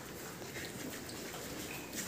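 A pen of piglets moving about on a concrete floor, a low, diffuse shuffling with faint animal noises.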